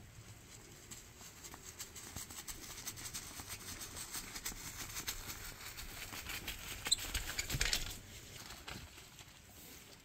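Stone roof roller pulled over a packed mud-and-earth roof, grit crackling and crunching under it in a dense run of small clicks that builds up and is loudest and rushing about seven seconds in before dropping away.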